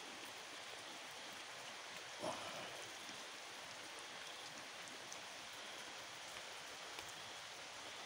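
Faint, steady hiss, with one short knock about two seconds in and a couple of faint clicks later.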